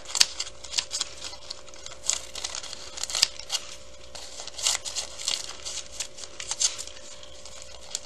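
Fringe scissors snipping through brown paper-bag paper, with the paper crinkling as it is handled: an irregular string of short, crisp snips and rustles.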